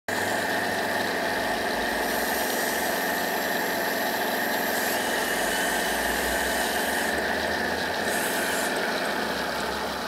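Radio-controlled excavator running, a steady high whine over a dense buzz as its boom and bucket move; the whine dips slightly in pitch near the end.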